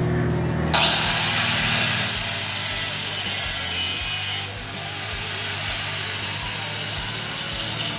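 Angle grinder with a cutoff wheel cutting through car body metal, starting abruptly about a second in. About halfway through it leaves the cut and keeps running more quietly.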